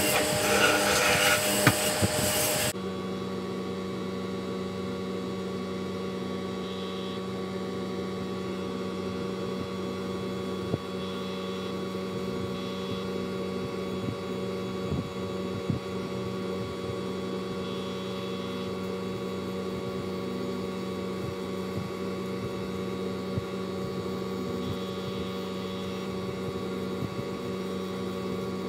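A 12 V cordless drill runs for the first two or three seconds and stops suddenly. After that a steady electrical hum carries on, with a few faint taps.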